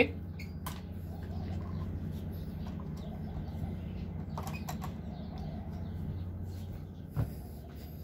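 A doorknob and latch clicking a few times about halfway through, over a steady low hum, with other short handling knocks.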